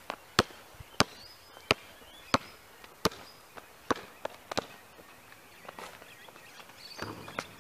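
A basketball being dribbled on an asphalt court: sharp bounces about every two-thirds of a second for the first few seconds, then fewer and more scattered as the players move toward the hoop.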